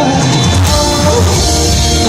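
Live pop-rock band playing loudly through a venue sound system, with drums and a steady bass line.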